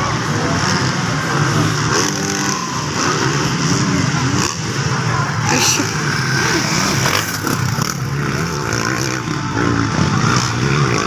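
Several motocross bike engines revving up and down, overlapping as the bikes race.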